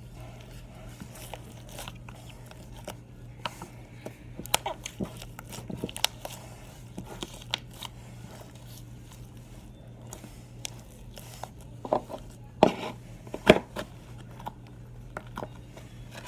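Slime being squeezed and poked by hand, giving irregular crackling clicks and pops, with a few louder pops near the end, over a steady low hum.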